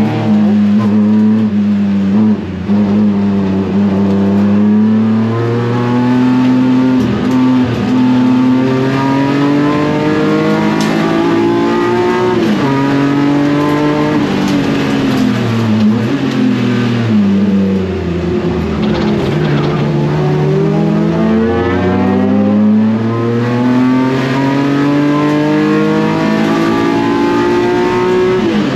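BMW S54 inline-six engine in an E36 race car being driven hard. Its pitch climbs and drops several times as it revs up through the gears and falls back under braking.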